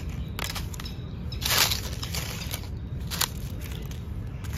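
Dry fallen leaves crackling and rustling as a hand brushes them aside, in several short bursts with the loudest crunch about one and a half seconds in, over a steady low rumble.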